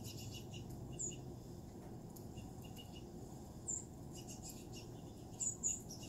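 Small songbirds' short, high chirps from a bird-feeder video played through the TV speakers: one about a second in, one past the middle and two in quick succession near the end, with fainter chips between and a low steady hum underneath.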